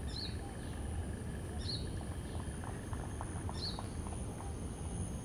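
A bird repeats a short, high call three times, about every two seconds, over a low steady outdoor rumble, with a faint high steady whine like an insect behind it.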